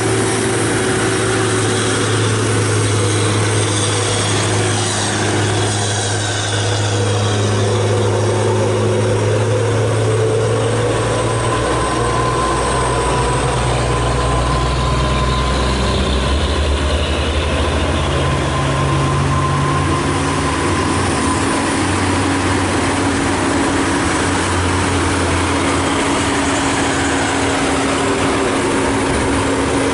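Heavy diesel truck engines running as trucks pass on a mountain road: a steady low drone whose pitch drops about a third of the way in and shifts again past halfway.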